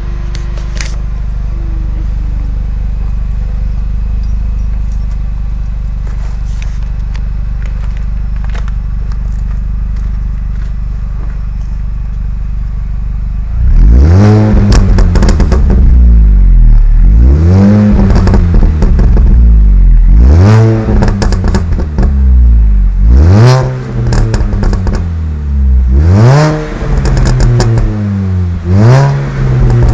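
Mini Cooper S engine on its stock exhaust, idling steadily. About halfway through it is blipped, revving up and falling back about six times.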